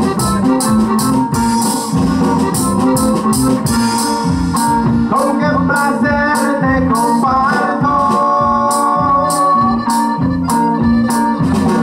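Live norteño band playing dance music: an accordion carries the melody over a steady bass line and a regular drum beat.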